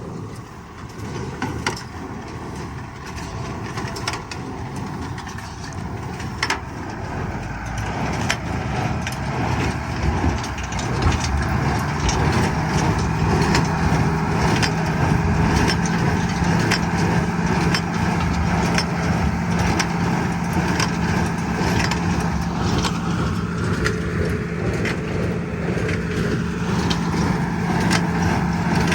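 Tractor engine running with a hay baler working, with sharp clicks and knocks scattered throughout. It grows louder over the first dozen seconds or so, then settles into a steady hum.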